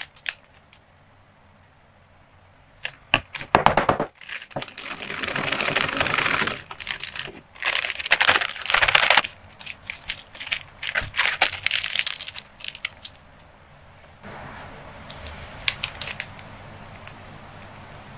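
Plastic piping bag crinkling and rustling as it is handled and the frosting inside is pushed down with a plastic ruler, with scrapes and sharp clicks. The rustling comes in loud bursts from about three seconds in and dies down to a quieter hiss with a few faint clicks near the end.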